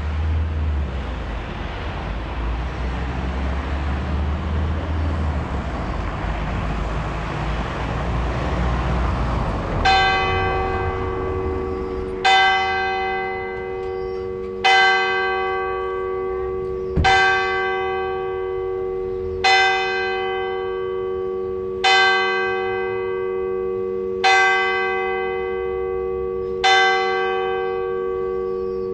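Road traffic passing, then from about ten seconds in the church tower bell of Onze-Lieve-Vrouwkerk strikes the hour of noon: eight slow, even strokes about two and a half seconds apart, each leaving a long ringing hum.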